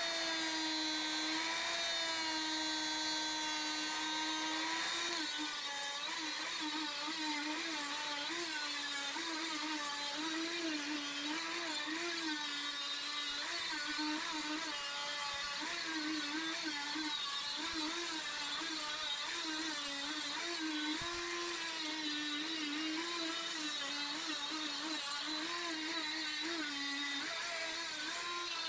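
Corded oscillating multitool with a rigid scraper blade, buzzing steadily for about five seconds, then its pitch dipping and wavering as the blade scrapes old carpet adhesive off a concrete stair step.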